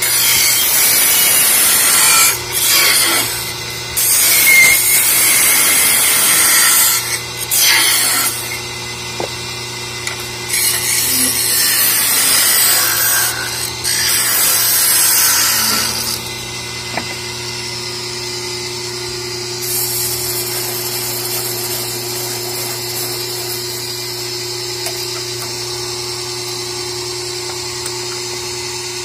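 Wood lathe spinning a wooden goblet blank while a hand-held turning tool cuts into it, scraping in repeated bursts that start and stop. After about sixteen seconds the cutting stops and only the lathe's steady motor hum is left.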